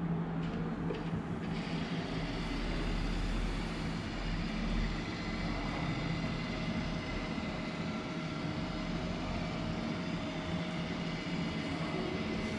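Epson Perfection V39 flatbed scanner running a preview scan: a steady motor whir as the scan head travels along the bed, with a steady tone joining about halfway through.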